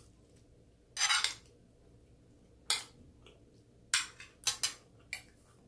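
Eating utensils clinking and scraping on a plate or bowl: about six short clatters, one longer scrape about a second in, then a quick run of them near the end.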